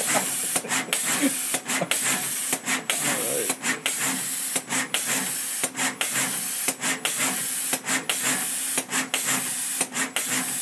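Surface-mount pick-and-place machine running: a loud steady hiss that cuts off briefly about once a second, over a faint low hum.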